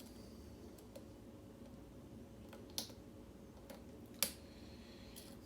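A handful of small, sharp metallic clicks as a pick works the pin stacks of a Schlage mortise cylinder challenge lock under tension, two of them louder, near the middle and about three-quarters of the way through.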